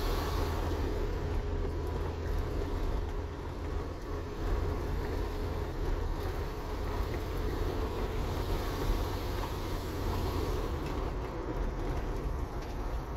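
A car driving slowly, with a steady low rumble of engine and tyres and a faint steady hum.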